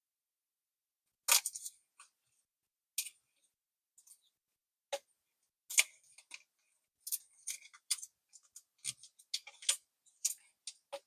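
Pokémon cards and plastic card sleeves being handled and slid into a mini portfolio's pockets: irregular short crinkles and clicks, coming more often in the second half.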